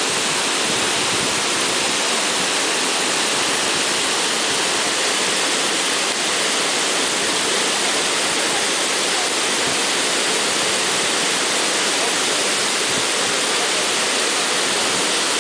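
Waterfall pouring over a rock face: a loud, steady rush of falling white water that does not change.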